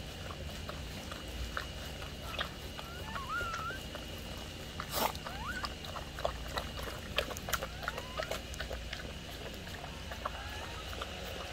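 Newborn puppies nursing at their mother: a few brief, faint squeaks, with many small wet clicks of suckling.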